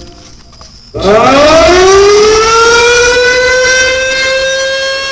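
Recorded air raid siren played loudly from an MP3 player: after about a second of lull, the wail starts suddenly, rises quickly in pitch and then holds a steady high tone.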